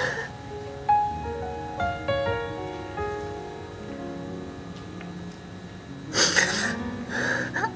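Soft piano music with a woman crying over it: a sobbing breath at the start and a longer run of shaky, sobbing breaths near the end.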